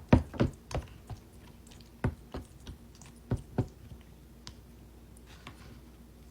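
Eating sounds: sharp, irregular clicks and crunches, several close together at first, then spaced out and fewer in the last couple of seconds.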